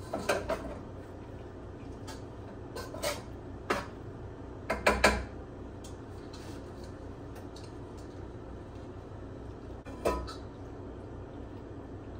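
A metal spoon knocking and scraping against a pan as cooked macaroni is spooned into a foil baking pan. There are a few short clatters: one right at the start, two more around three to four seconds, the loudest cluster about five seconds in, and a last one near ten seconds.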